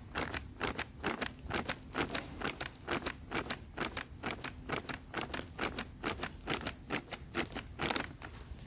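Lamb skewers grilling over charcoal, crackling and popping in quick, sharp clicks at about four a second.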